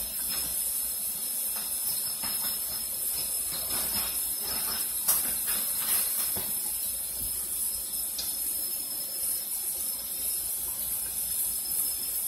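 A steady high hiss, with a few light knocks and clicks from handling the fish in a stainless steel sink, most of them in the middle.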